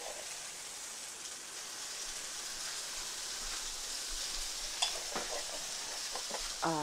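Sausages frying in oil in a cast-iron skillet: a steady sizzling hiss, with a couple of faint clicks about five seconds in.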